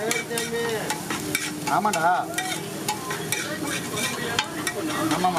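Egg bhurji being scrambled on a large flat iron tawa: a spatula scrapes and stirs the egg in quick repeated strokes over a steady sizzle of frying.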